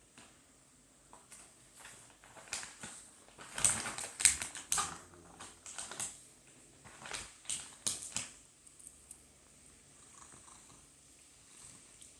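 Cat eating: a run of quick, sharp chewing clicks, loudest about four seconds in, that thin out and stop after about eight seconds.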